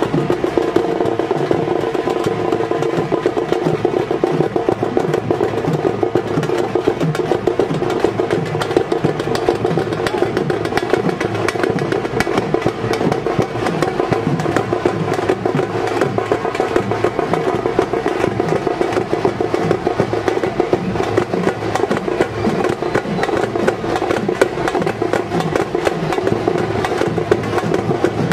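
Fast, continuous drumming of the kind played for a puli attam (tiger dance), a dense run of strikes that keeps going without a break.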